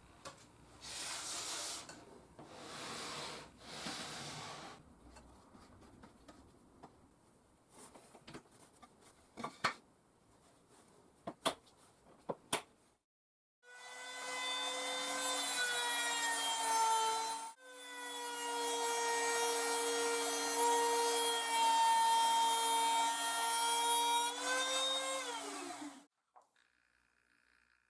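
Trimmer (compact router) in a router table cutting wood, a steady high whine over dense cutting noise, as the stock on a sled is shaved by a bearing-guided straight bit. It runs twice from about halfway in, a short pass and then a longer one, and its pitch drops as it spins down near the end. Before that come a few soft rubbing strokes and light knocks.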